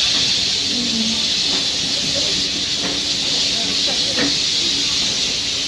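Steam locomotive hissing steadily, with faint voices beneath.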